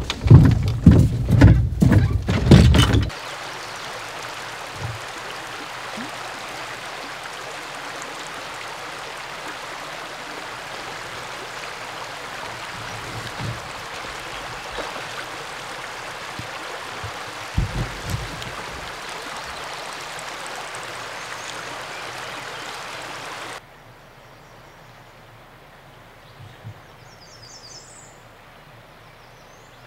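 Loud, irregular noise for the first few seconds, then the steady rush of a river running over a shallow riffle. About 23 seconds in it cuts off suddenly to quieter outdoor air, with a brief high bird call near the end.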